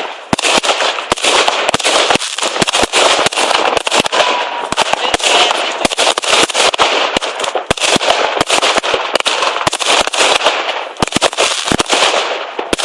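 New Year's Eve fireworks going off: a dense, continuous crackle with many sharp bangs in rapid, irregular succession.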